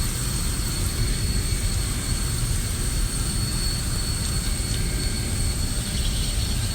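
Mechanical-room machinery running with a steady low rumble and a faint steady high tone.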